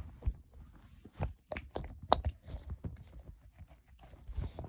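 A squishy toy being handled and squeezed: a string of irregular crackles and taps, the sharpest about two seconds in.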